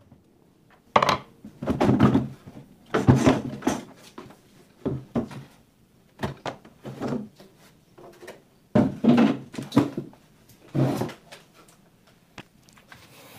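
Plastic back cover of a CRT television being unscrewed and lifted off: a run of irregular knocks, thunks and plastic clattering.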